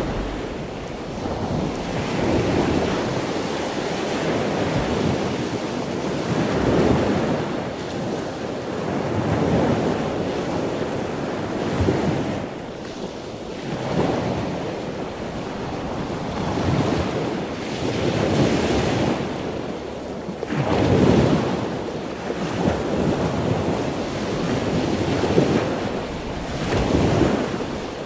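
Waves washing onto a beach, the surf swelling and falling back every two to three seconds, with wind rumbling on the microphone.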